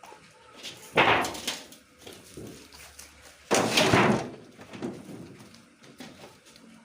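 Metal clattering and banging twice, about a second in and again a few seconds later, from a dismantled refrigerator's steel parts being knocked about.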